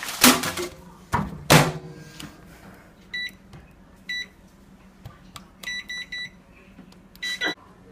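Microwave oven: two loud knocks from the door being shut, then a steady low hum under a series of same-pitched keypad beeps, first single ones, then a quick run of three, then a last longer beep near the end.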